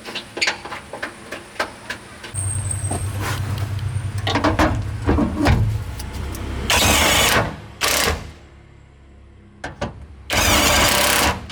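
Clicks and knocks, then a motor starts about two seconds in and runs with a steady low hum. Three loud, abrupt hissing blasts follow, the last and longest near the end.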